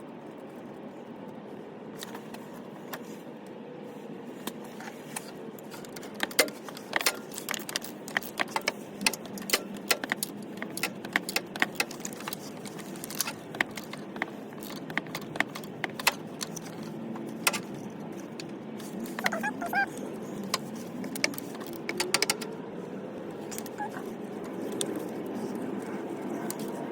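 Irregular metallic clinks and taps of hand tools and bolts as a replacement starter is fitted and its bolts are started by hand, over a steady background hum.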